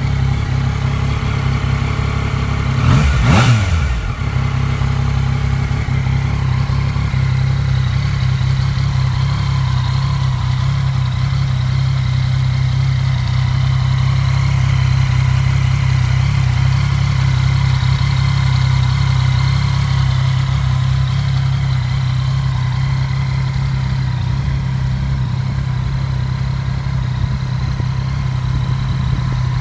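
2018 Yamaha Tracer 900 GT's 847 cc three-cylinder engine idling steadily, with one quick blip of the throttle about three seconds in, the revs rising and dropping back within a second.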